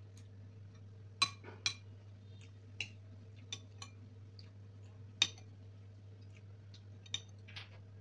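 Steel spoon clinking against ceramic serving bowl and plate while curry is ladled out: about eight sharp, irregular clinks, the loudest about a second in and about five seconds in, over a steady low hum.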